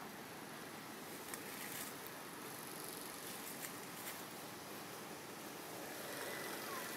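Steady outdoor background hiss with a few faint sharp clicks spread through it, and a thin high whistling tone that comes in near the end.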